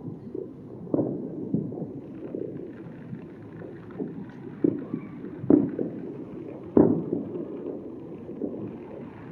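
Distant consumer fireworks going off in several dull, irregularly spaced bangs, the two loudest a little past the middle, over a steady low rumble.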